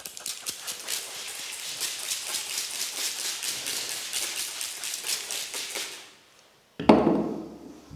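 Hands working fast through hair and scalp in a head massage: a rapid run of scratchy rubbing and tapping strokes that stops about six seconds in. Then, near the end, a single loud dull thump.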